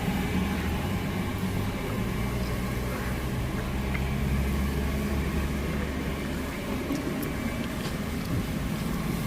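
A machine motor running steadily with a low hum over a broad hiss.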